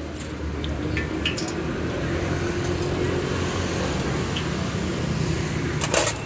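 Hot oil bubbling and sizzling in a street stall's tofu deep fryer over a steady rumble of street traffic, with a short clatter about six seconds in.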